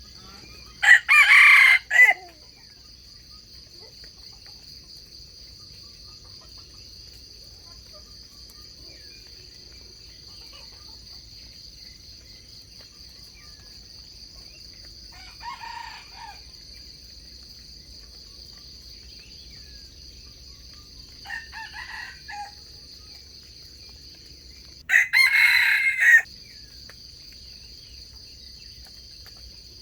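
Junglefowl roosters crowing: two loud, close crows of about a second and a half each, one near the start and one near the end, with two fainter crows from further off in between. This is typical of a decoy rooster crowing to lure wild cocks. Insects keep up a steady high drone underneath throughout.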